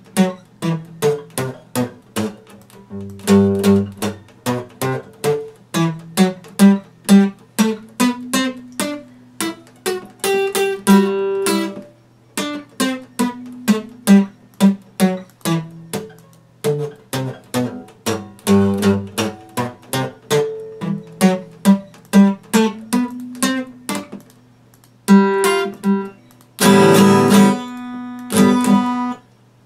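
Epiphone acoustic guitar played solo: single notes and small chords picked at a steady pace of about two to three a second, then, after a brief pause, a few louder full strummed chords near the end.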